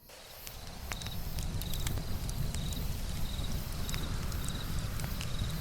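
Campfire crackling, with irregular sharp pops over a low steady rumble, and crickets chirping in short repeated trills. The sound fades in from silence over the first second.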